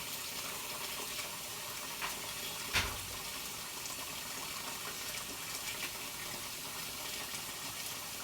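Water running steadily from a kitchen tap into a sink, with a single knock about three seconds in.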